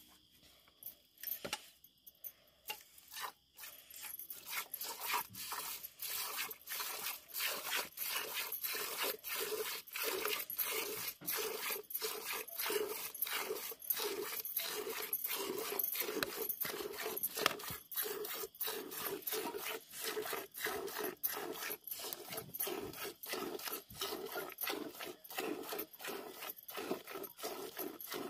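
Cow being milked by hand: rhythmic squirts of milk hitting a steel pail, about two to three a second. A few scattered squirts come first, then the rhythm settles in about three or four seconds in and stays steady.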